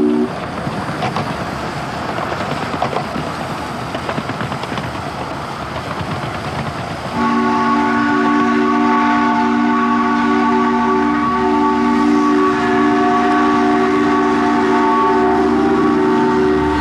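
Coal-fired miniature steam locomotive on the move, a noisy rush of exhaust with fine rail clatter. About seven seconds in, its multi-note chime whistle starts blowing one long steady chord that holds to the end.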